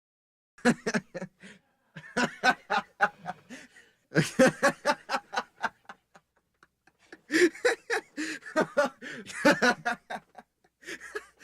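A man laughing in short, rapid chuckling bursts, several bouts of 'ha-ha-ha' with brief pauses between them.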